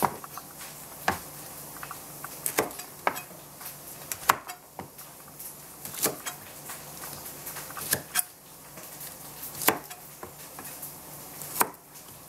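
Chef's knife cutting Brussels sprouts on a plastic cutting board: about a dozen sharp, irregular knocks of the blade striking the board, roughly one every second.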